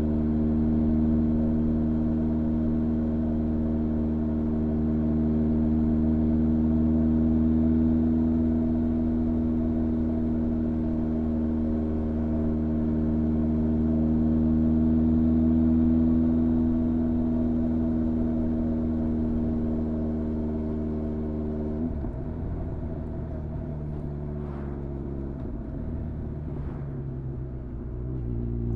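Honda CB1300's inline-four engine running at steady revs while riding. About three-quarters of the way through, the note drops and turns uneven for several seconds, then climbs again right at the end.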